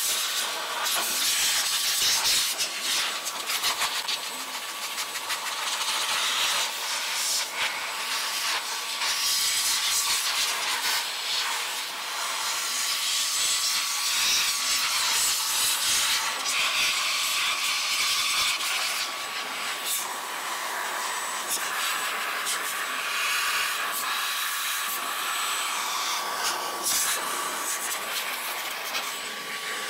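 McKee's 37 Mini Car Dryer blower running, a strong hiss of air blasting water off a wet engine bay, with a steady whine underneath. The rush swells and dips as the nozzle is moved around.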